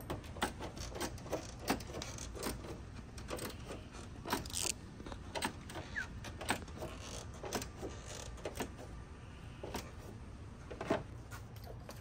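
Scattered light clicks, taps and rattles of hand tools and fasteners being handled on a car's front end, over a steady low hum.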